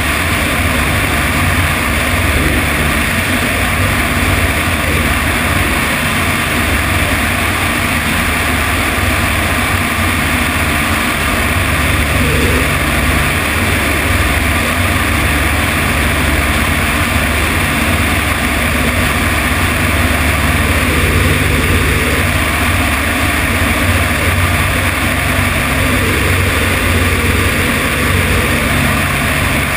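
Single-engine light aircraft's piston engine and propeller running steadily in cruise flight, heard from outside on the wing with wind rushing over the microphone.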